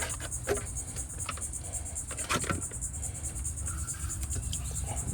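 Insects chirring steadily in a fast, even pulse, over a low rumble, with a few scattered knocks and clicks.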